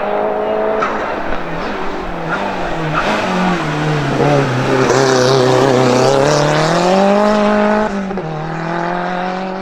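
Race car engine running hard on a hillclimb: its pitch drops about four seconds in, climbs back up as it grows louder, then steps down near the end at a gear change.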